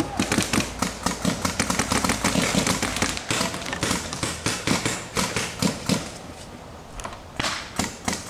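Paintball markers firing in rapid strings of sharp pops, easing off about six seconds in and starting again near the end.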